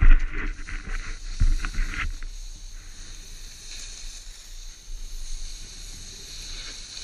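Snowboard sliding and carving through soft snow: a scraping rush of spraying snow with a couple of low thumps in the first two seconds, then a quieter, steady hiss of the board gliding.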